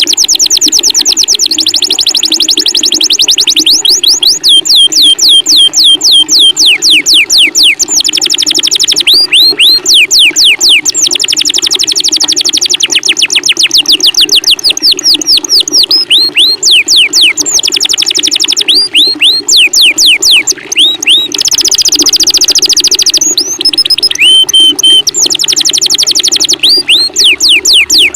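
Masteran recording of songbird calls: long fast runs of loud, high, downward-sweeping whistled notes, several each second, pausing briefly now and then, over a constant low water sound.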